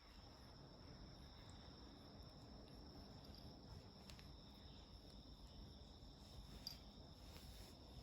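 Near silence: room tone with a faint steady high-pitched whine, and a faint tick a little after the middle.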